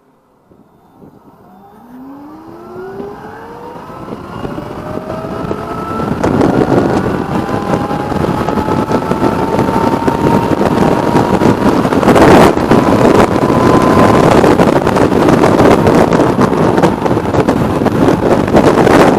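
Electric motorcycle accelerating from near silence: a thin whine from its electric drive rises steadily in pitch as it speeds up, while wind noise on the microphone builds until it covers most of it. A sharper gust about twelve seconds in.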